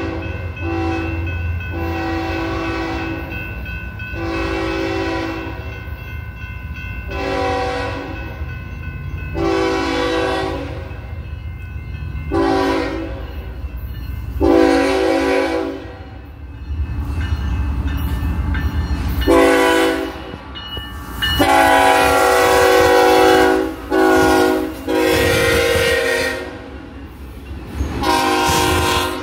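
Canadian Pacific diesel freight locomotive's horn, several tones sounding together, blowing a long series of long and short blasts for a grade crossing as the train draws near. The blasts come closer together and louder in the second half, over the steady low rumble of the locomotives.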